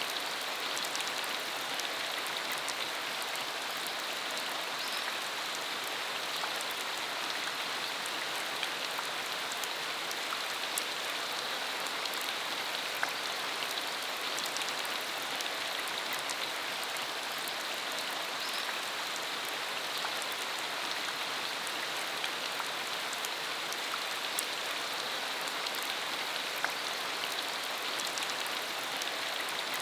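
Steady rain falling on a dirt country road, an even hiss with scattered sharper drop ticks.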